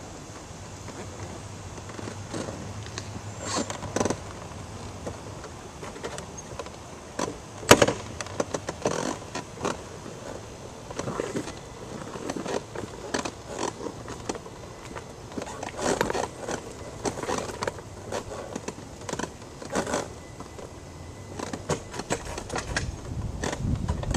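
Irregular scraping, rustling and clicking from the camera being handled and moved, with one sharp knock about eight seconds in, over a faint low hum.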